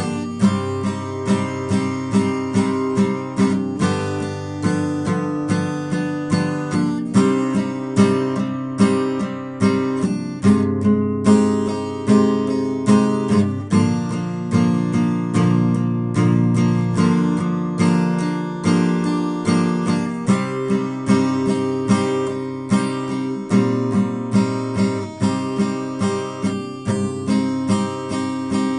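Steel-string acoustic guitar with a capo, played alone without voice: chords in a steady, even rhythm of several notes a second.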